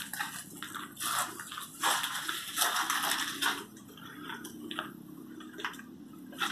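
Footsteps crunching on a debris-strewn floor, an irregular series of crunches that are strongest in the first few seconds and lighter near the end.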